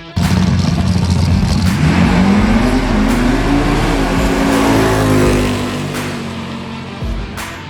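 Drag car launching and accelerating hard down the strip, its engine pitch climbing through the run, then dropping and fading as it pulls away.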